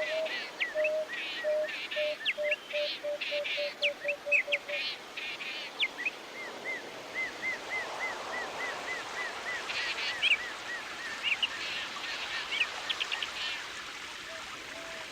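Several birds calling together over a steady background hiss. One bird gives a run of low notes that speeds up and stops about five seconds in, another repeats a short higher note several times a second, and bursts of quick chirps come in early and again past the middle.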